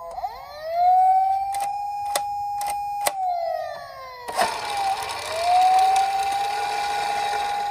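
A toy police car minicar's built-in electronic siren sounding a wail: it rises, holds, then falls, and after a short gap rises and holds again. Along with it come a few sharp clicks in the first half and a hissy crackle over the second half.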